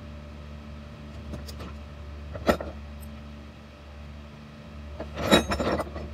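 Metal hand tools clinking on a workbench: one sharp clink about two and a half seconds in, then a short clatter of clanks near the end as a large adjustable wrench is picked up. A steady low hum runs underneath.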